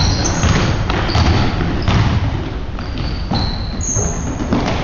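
Basketball bouncing and players' footfalls thudding on a hardwood gym floor, with short high sneaker squeaks, the sharpest about four seconds in.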